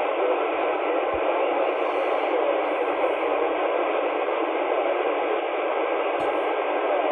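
Steady static hiss from a radio transceiver's speaker on an open channel: nobody answers the call to the silent-key station.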